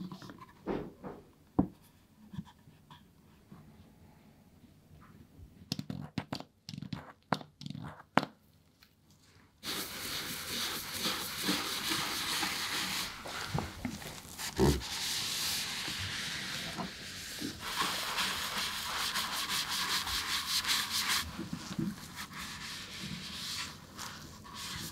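A bristle shoe brush scrubbing over a gold metallic leather shoe, a dense continuous scratching that starts suddenly about ten seconds in. Before it come a few light taps and knocks from the shoes being handled.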